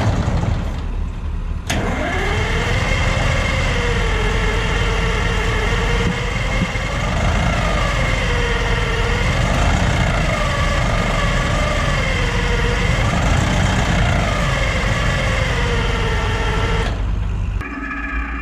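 Diesel engine of a Hopto H-1900 hydraulic excavator running with a deep rumble, its pitch rising and falling unevenly every second or two rather than holding steady. The crew suspect air in a filter or a plugged filter, the kind of fuel trouble that makes an engine surge. The sound cuts off near the end.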